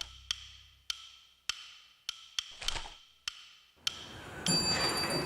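Sharp wood-block ticks keep a steady beat of about three every two seconds, with a whooshing swell about two and a half seconds in. The beat is a tick-tock motif in the intro music. About four and a half seconds in, it gives way to room noise with a faint steady high-pitched tone.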